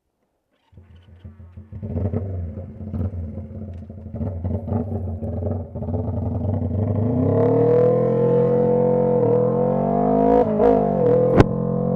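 Honda CB125T's parallel-twin engine running with its silencer and air cleaner removed. It cuts in about a second in, rough and uneven at low revs, then rises steadily in pitch as the bike accelerates, with brief dips near the end and one sharp crack just before the end.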